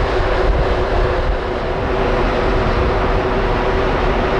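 Steady drone of the passenger ferry under way: a constant machinery hum over a low rumble, with no change in pitch or level.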